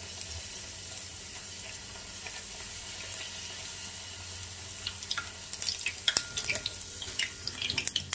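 Hot oil sizzling with a steady hiss in a small steel pan as a luchi deep-fries. From about five seconds in, a steel spoon clinks and scrapes against the pan as hot oil is spooned over the puffing luchi.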